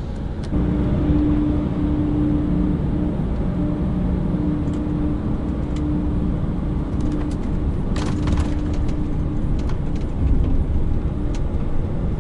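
Lorry's diesel engine heard from inside the cab as the truck pulls away and drives at low speed, a steady hum that steps up about half a second in. A cluster of sharp knocks comes about eight seconds in.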